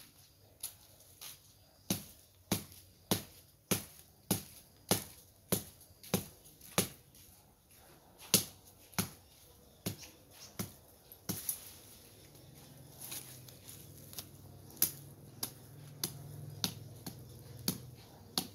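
Hand blade chopping at shrub stems near the ground: a steady run of sharp chops about every 0.6 seconds, then slower, uneven strikes in the second half.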